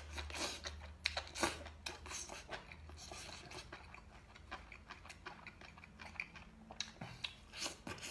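Close-miked eating of red-glazed enoki-mushroom skewers: biting and chewing with irregular soft crunches and wet clicks, a little louder about a second and a half in and again near the end.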